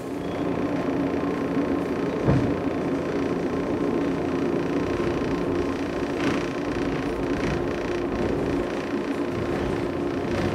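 Inside a JR 113-series electric train car pulling slowly out of a station: steady running noise with a constant low hum, and a single clunk about two seconds in.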